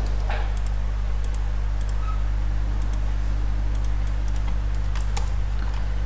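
A few scattered computer keyboard and mouse clicks over a steady low hum, as the panel size is copied and pasted between forms.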